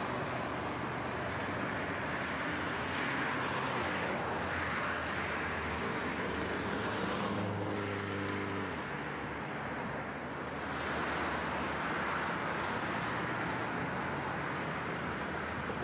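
Diesel suburban railcar running with a low drone through a steady rushing outdoor noise; the drone stops about nine seconds in, leaving only the rushing noise.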